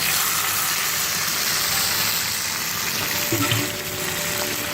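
Marinated chicken pieces sizzling loudly in hot vegetable oil in a frying pan; the sizzle starts abruptly and eases slightly near the end.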